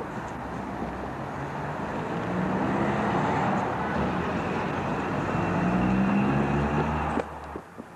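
A motor vehicle driving past close by on the street: engine note and tyre noise swell over a few seconds, then cut off abruptly about seven seconds in.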